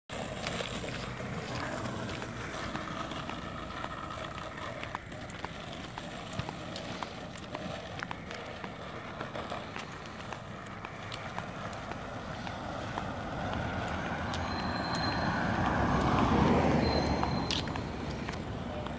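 Skateboard wheels rolling over asphalt with scattered clicks from joints and grit. A car passes near the end, its noise swelling and then fading away.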